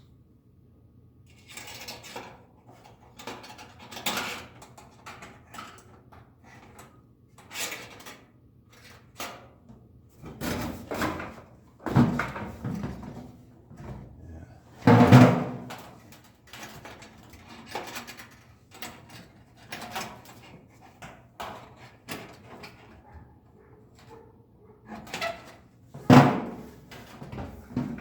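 Stiff TIG filler wire being bent and handled into a hanger loop: irregular metallic clicks, scrapes and knocks, with two louder knocks about halfway through and near the end.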